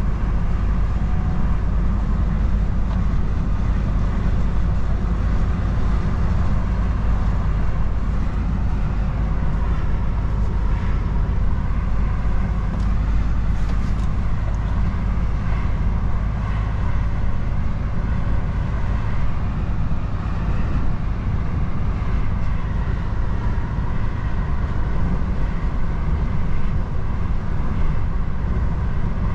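Heavy truck driving along the road: a steady low engine and drivetrain rumble with an even hiss of road noise above it.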